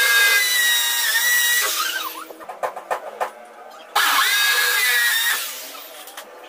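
Electric drill with a masonry bit boring into a wall: the motor whines at a steady pitch for about two seconds and stops, a few clicks follow, and a second burst of drilling starts about four seconds in and lasts about a second and a half before winding down.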